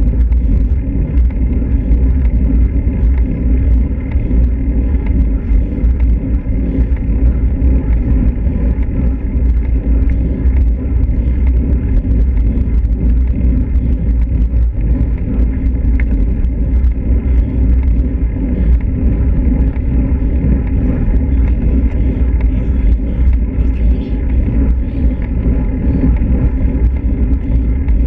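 Steady wind rumble on a bike-mounted action camera's microphone while riding a road bike, mixed with the hiss of tyres rolling on asphalt.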